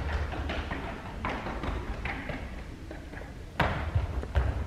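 Footsteps of trainers on concrete stairs, a quick run of light taps, turning into louder, heavier running steps on the hard floor near the end.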